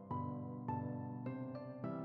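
Background music: gentle keyboard notes struck about every half second or so, each fading before the next.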